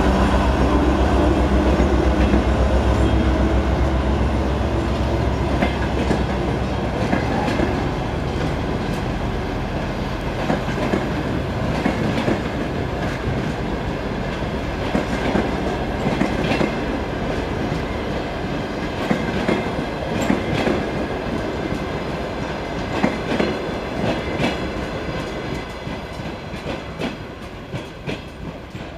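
Diesel engine of a 2M62U locomotive section (a 14D40 two-stroke V12) running as the locomotive pulls a departing train past; its low drone dies away over the first few seconds. After it comes the clickety-clack of passenger-coach wheels over rail joints, which fades over the last few seconds.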